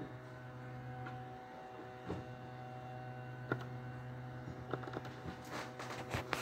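Low, steady electrical mains hum with a few faint clicks.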